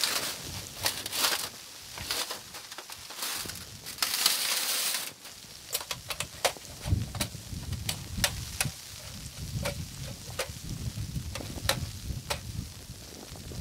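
Scattered clicks and knocks with bursts of crinkly rustling as camping gear and a stove pipe are handled inside the tent's doorway. From about seven seconds in, an irregular low rumble of wind buffeting the microphone runs under the handling noises.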